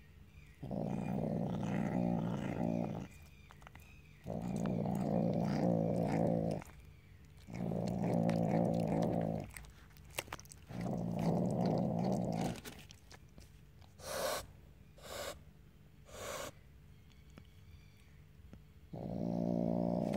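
Asian leopard cat growling over a raw chicken drumstick it is eating: five low rumbles of about two seconds each, with short pauses between. A little past halfway come three short, sharp bursts of noise.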